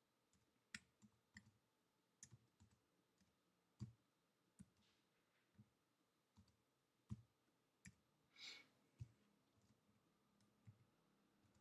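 Slow, irregular keystrokes on a computer keyboard: faint single clicks, often a second or so apart. A short soft hiss comes about eight seconds in.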